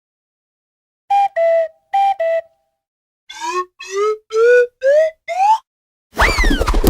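Cartoon whistle sound effects. First come four quick toots alternating between two pitches. Then six short notes follow, each sliding upward and climbing higher than the last. Near the end a loud crash-like hit with a swooping tone begins.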